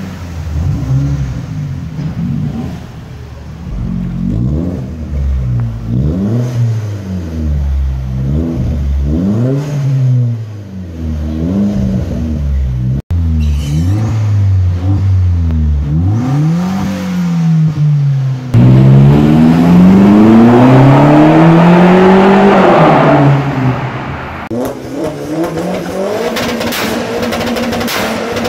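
Tuned four-cylinder hatchback engines, among them a Vauxhall Corsa VXR's 1.6 turbo, revved repeatedly in an underground car park: a run of short revs whose pitch rises and falls, then a louder, longer set of revs about two-thirds through. Near the end an engine settles to a steady idle with rapid exhaust crackles.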